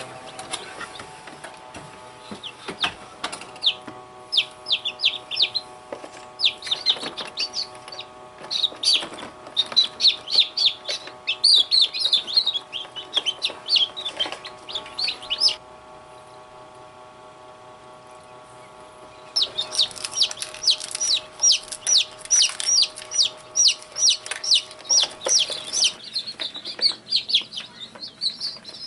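Newly hatched chicks and quail chicks peeping, many rapid high-pitched cheeps over a steady hum. The peeping stops for about four seconds around the middle, then starts again busily.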